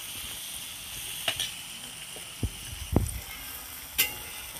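Chopped onion, capsicum and garlic sizzling steadily in oil in a kadai, with soy sauce just added, as a steel ladle stirs them; the ladle knocks and scrapes against the pan about four times, loudest near the end.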